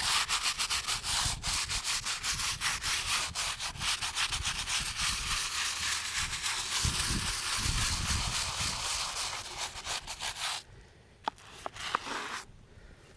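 Bristle brush scrubbing a headstone's surface in rapid back-and-forth strokes, working off buildup loosened by a pre-applied headstone cleaner. The scrubbing stops about ten and a half seconds in, leaving a couple of light clicks and a brief scrape.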